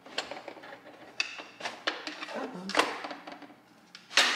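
A drawer organizer being shifted around inside a kitchen drawer: a handful of separate light knocks and scrapes, the sharpest knock near the end.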